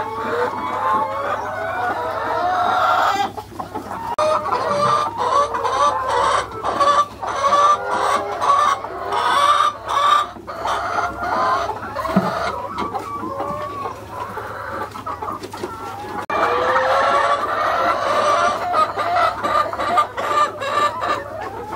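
A flock of laying hens clucking and cackling together, with many short calls overlapping, and a few sharp clicks in the middle.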